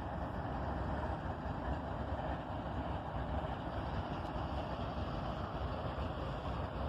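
Four stopped diesel-electric freight locomotives (an ET44AC, a Dash 9, an SD70ACe and an ES44DC) idling, a steady low rumble.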